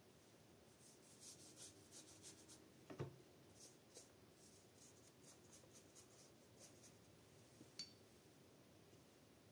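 Faint scratchy strokes of a paintbrush working watercolour from the pan and brushing it onto old book paper, with a soft knock about three seconds in and a small click near the end.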